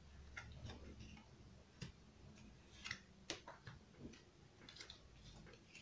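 Playing cards being handled and dealt onto a table: faint, irregular clicks and taps of cards against the deck and the tabletop.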